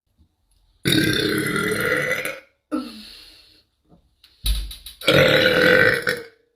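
A woman burping twice: two long, loud burps of about a second and a half each, the second starting about four and a half seconds in, with a brief, quieter vocal sound between them.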